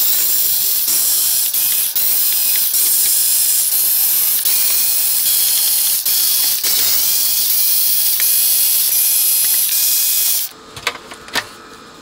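Cordless electric screwdriver backing out a run of screws from an amplifier's back panel. The motor runs almost continuously with brief dips, and its pitch shifts from screw to screw. It stops about ten and a half seconds in, followed by a few light clicks.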